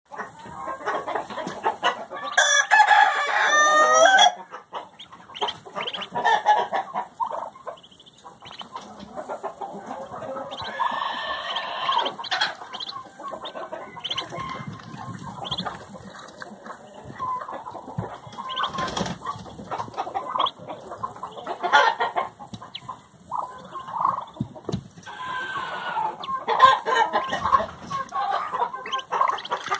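Muscovy duckling splashing and dabbling in a shallow water dish, with short irregular splashes and drips. A loud bird call about two seconds long sounds a couple of seconds in, and softer bird calls come and go.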